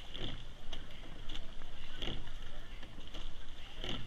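A racing rowing eight under way at about 32 strokes a minute, three strokes in all. Each stroke gives a thump of oars and oarlocks at the catch and a rush of water along the hull, over steady wind and water hiss. This is the 'silent' stretch of a race piece, so the coxswain makes no calls.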